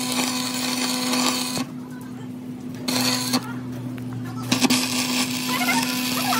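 A power tool or workshop machine motor running steadily with a constant hum and a gritty hiss; the hiss drops away twice for about a second each time while the hum carries on.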